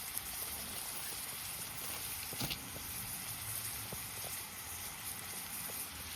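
Food sizzling in a pan: a steady hiss with a few small pops.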